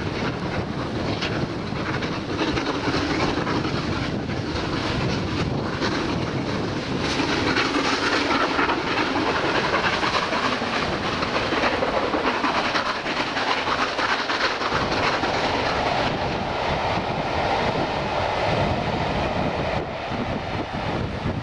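Steam-hauled passenger train, led by an LMS Royal Scot class 4-6-0, passing close by while working hard uphill. The coaches clatter over the rail joints, with many sharp clicks in the first several seconds. Strong wind buffets the microphone throughout.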